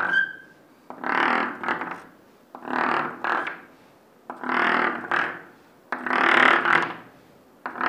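Chalk scratching on a chalkboard as vertical dotted lines are drawn down the board. It comes in a series of strokes about a second long each, roughly one every second and a half.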